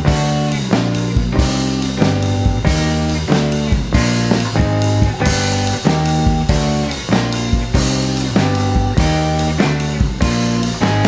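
A live rock band playing an instrumental passage with no singing: guitar chords and drums on a steady beat.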